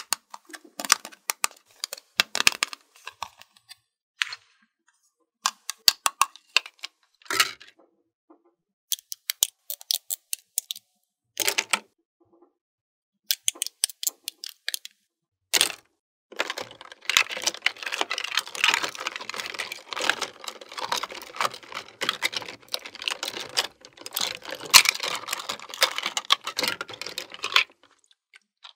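Small hard plastic toy dishes and cutlery clicking and clattering as they are handled, in separate short knocks at first. In the second half comes a longer stretch of rapid, continuous rattling and scraping of plastic pieces against a plastic dish rack.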